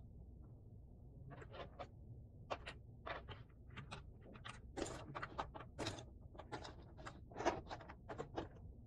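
Cardboard jigsaw puzzle pieces being handled: a quick run of small taps, clicks and rustles as pieces are picked up, moved and set down on the table, the loudest tap near the end.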